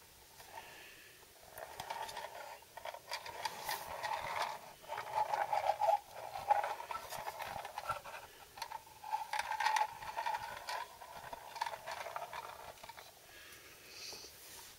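Toy truck's wheels rolling and scraping along a hard floor as it is pushed by hand: a rough rolling rumble with scattered clicks that swells twice and fades near the end.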